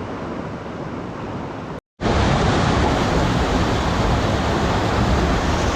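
Rushing creek water, a steady wash of noise; a hard edit cut just before two seconds in, after which the water is louder.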